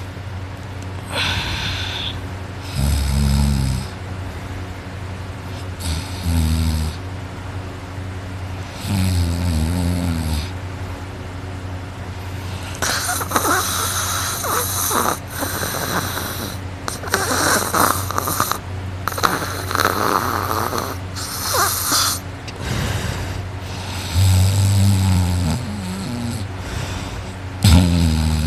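A person asleep on their back, snoring loudly: deep, low, rattling snores every few seconds, with a stretch of harsher, hissing breaths in the middle before the deep snores return near the end.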